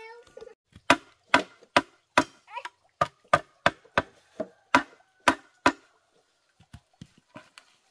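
A tool striking wood sharply, about a dozen blows at two or three a second, stopping about six seconds in, followed by a few faint taps.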